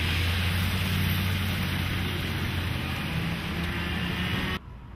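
Traffic passing on a rain-soaked road: tyres hissing on wet pavement over a steady engine rumble. It cuts off suddenly near the end.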